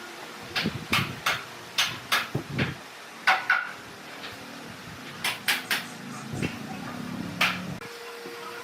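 Irregular series of sharp wooden knocks and clacks, about a dozen, with a pause in the middle and a last single knock near the end: wooden pieces being handled and set down against each other.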